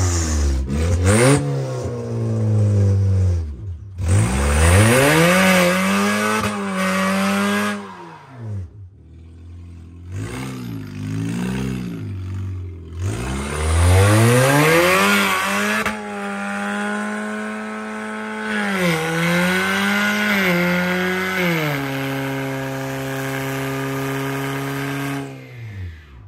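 Ford Fusion's engine revved hard during a reverse burnout, climbing and falling back several times, then held at high revs for several seconds before stepping down and dying away near the end. Under it, the spinning tyre hisses and scrubs against the vending machine it is propped on, smoking.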